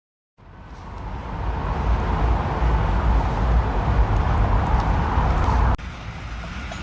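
Loud, steady low rumble of a heavy engine or machine running, building up over the first second or two and cutting off abruptly about a second before the end, leaving a quieter rumble.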